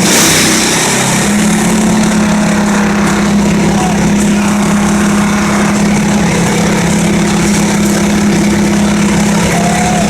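Wood chipper's engine running steadily at a constant pitch, with a short burst of hiss at the very start.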